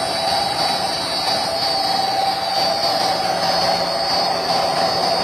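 Electric motor of a solar-powered tubewell running steadily, driving the well pump by V-belt, with a constant whine.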